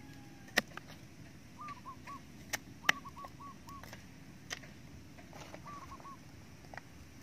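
A kitchen knife knocking sharply on a wooden chopping block, about five separate strikes as food is cut. A bird calls behind it in three short runs of quick repeated notes.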